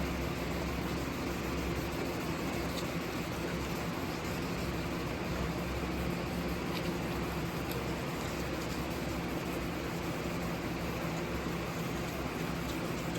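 Wet sanding of a plastic headlight lens with fine 1500-grit sandpaper, a steady rubbing hiss, over a steady low hum.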